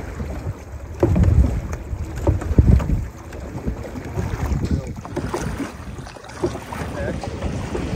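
Wind buffeting the microphone in gusts, loudest about one second and two and a half seconds in, over water splashing around a large canoe being paddled.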